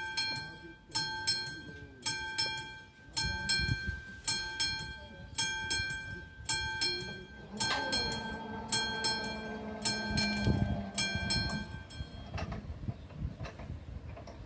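Classic electromechanical warning bell of a Czech level-crossing signal ringing in repeated strikes, a little under one a second. From about halfway through, the barrier drive runs with a steady hum as the booms come down. Both stop together about three seconds before the end, once the barriers are closed.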